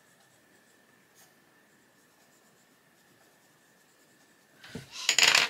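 Faint scratching of a Faber-Castell Polychromos coloured pencil shading on paper. Near the end comes a short, loud clatter as the pencil is swapped for another.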